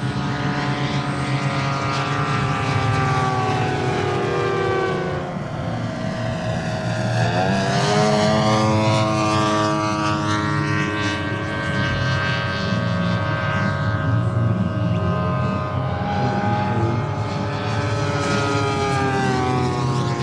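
JetCat turboprop of a 1:3-scale Grob G 120TP model aircraft in flight, driving a five-bladed propeller: a continuous turbine whine with propeller drone. Its pitch drops about five seconds in, sweeps up sharply a second or two later, holds steady, and falls again near the end.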